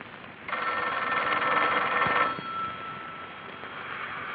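Desk telephone bell ringing once for nearly two seconds, its tone dying away over the next two seconds.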